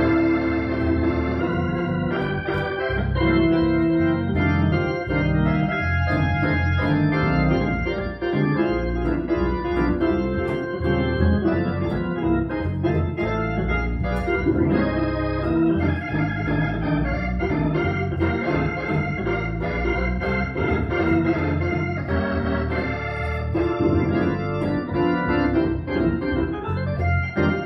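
Organ music: sustained chords that shift from one to the next at a steady level.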